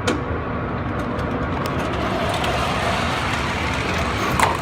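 Steady low rumbling background noise, with a few small clicks and one sharp knock near the end.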